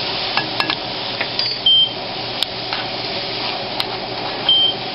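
Chicken and peppers sizzling in a pan on high heat with a little water just added, a utensil clicking against the pan now and then as it is stirred. A short, high electronic beep sounds twice, about three seconds apart.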